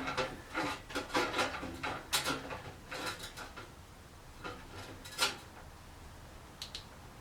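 Handling noise from camera gear being fitted back together: a quick run of clicks, taps and rubbing for about five seconds, then only a couple of faint clicks.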